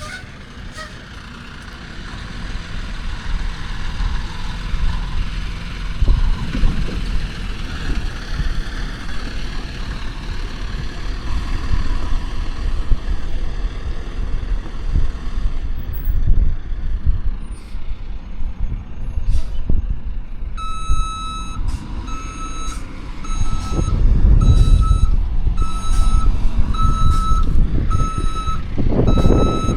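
Heavy diesel earthmoving machinery running throughout. About two-thirds of the way in, a backup alarm starts beeping steadily, roughly one and a half beeps a second, as a machine reverses.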